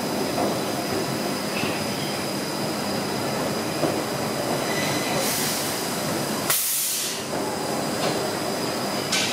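Train running along the rails with steady wheel noise and a thin, steady high squeal. A short hiss comes about five seconds in, a louder sharp hiss about six and a half seconds in, and a brief one near the end.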